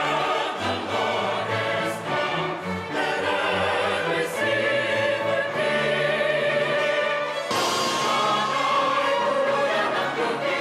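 Symphony orchestra playing with singing voices over it; the music changes abruptly to a new passage about seven and a half seconds in.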